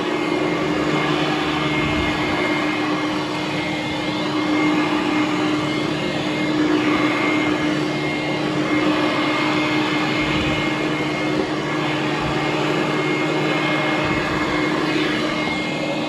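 Hoover Conquest upright vacuum cleaner running steadily on carpet, a continuous motor hum with a high whine over the rush of air.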